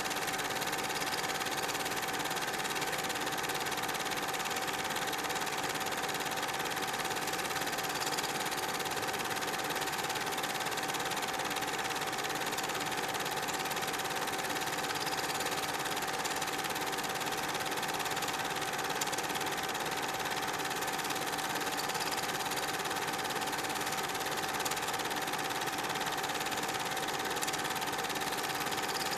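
Super 8 film projector running: a steady mechanical whir and clatter with a constant hum.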